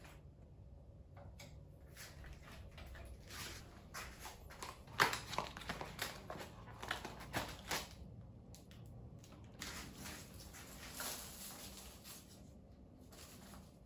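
Handling noises from a cardboard box of handlebar tape being opened, with rustling and sharp crackles about halfway through, then softer rustling as the tape is unwrapped.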